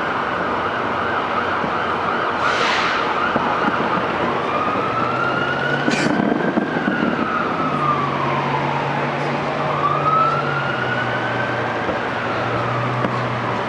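Emergency vehicle siren wailing, a slow rise and fall that starts about four seconds in and repeats twice, over steady rushing background noise. Two short sharp bursts of noise come about two and a half and six seconds in.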